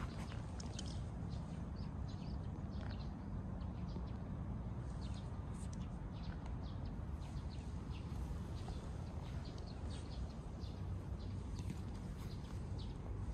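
Small birds chirping: many short, high calls scattered all through, over a steady low rumble.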